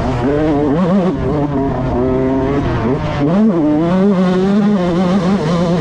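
Yamaha YZ125 single-cylinder two-stroke motocross engine running under load, its pitch rising and falling with the throttle. A little past halfway it drops, then climbs sharply, and it holds a steady high note toward the end.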